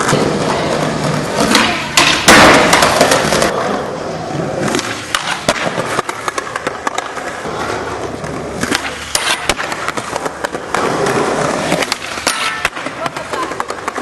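Skateboard wheels rolling over asphalt and concrete, with sharp clacks of the board slapping the ground. The loudest hits come about two seconds in, and a run of lighter clicks and knocks follows in the second half.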